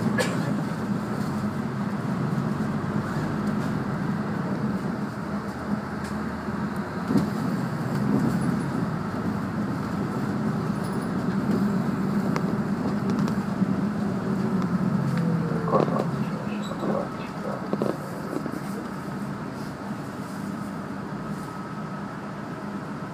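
A city route bus heard from inside its cabin while driving: a steady engine drone over road and tyre noise, with a few short knocks and rattles.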